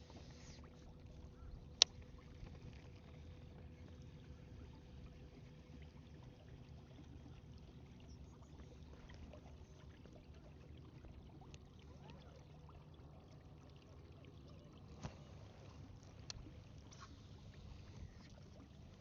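Quiet ambience aboard a fishing kayak: a faint low hum with a few light knocks and clicks, the loudest a single sharp click about two seconds in.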